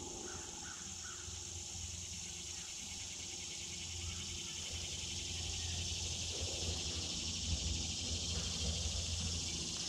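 A steady, high-pitched insect chorus of crickets and katydids trilling, over a low rumble.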